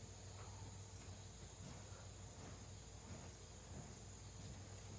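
Near silence: a faint, steady background of hum and hiss with a continuous high-pitched band.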